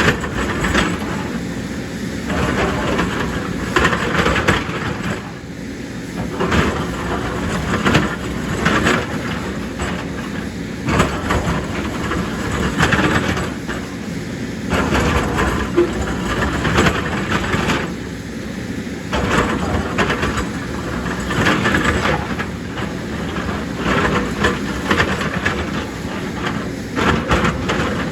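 JCB excavator at work: its diesel engine running under load, swelling and easing every few seconds, with repeated knocks and rattles of the machine and earth and rock being moved.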